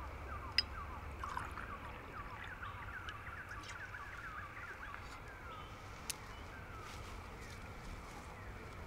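Woodland ambience: birds twittering in many short, quick chirps over a low steady rumble, the chirping thinning out in the last few seconds. Two sharp clicks stand out, about half a second in and about six seconds in.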